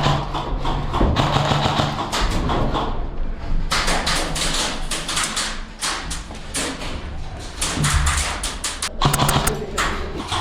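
Airsoft guns firing: many sharp, irregular cracks, coming in quick strings mostly in the second half.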